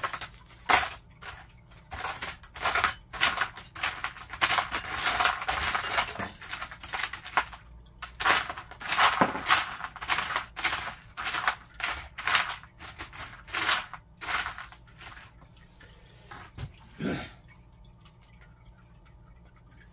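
Metal clanks, knocks and scrapes of a flat steel bar and stainless fittings being handled and set in place to fix a stove flue pipe, in irregular clusters that thin out in the last few seconds.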